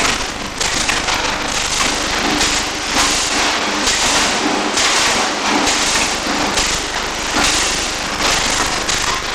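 Electric arc welding: a loud, dense crackle and sizzle from the arc, coming in stretches of about a second with brief dips between them.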